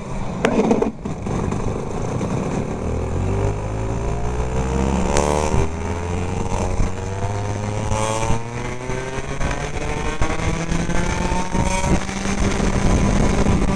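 Go-kart engine accelerating away, its pitch climbing in several long rises as the kart picks up speed, heard from the driver's helmet with a steady rushing noise underneath.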